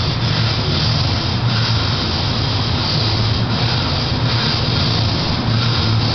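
Steady low hum with a constant hiss over it.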